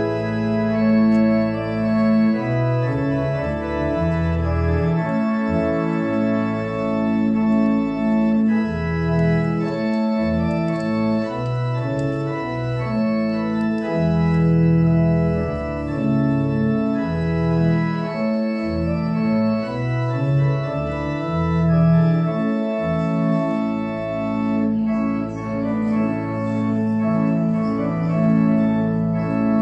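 Church pipe organ playing the closing voluntary after the benediction: sustained chords that change every second or so over a low bass line.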